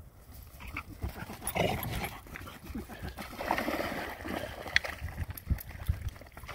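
Two golden retrievers tussling over one stick, with short dog whines and grunts over rustling, then wading into shallow water with some splashing.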